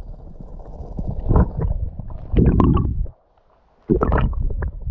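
Muffled river water heard through an action camera held underwater: a low rumble and sloshing with several louder surges, cutting out briefly about three seconds in before another surge.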